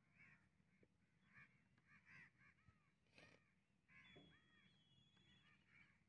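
Faint birds calling in the background: short arched calls repeating throughout, with a soft click about three seconds in and a thin high whistle held for about a second and a half near the end.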